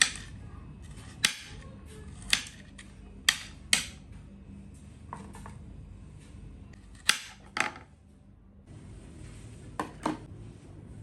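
Dishes and cutlery clinking as they are handled, with about nine sharp clinks at uneven intervals.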